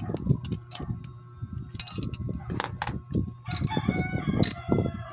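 Hands handling metal and plastic Beyblade parts, with sharp small clicks and a steady rub of skin and plastic. About three and a half seconds in, a bird call rises and falls for about a second in the background.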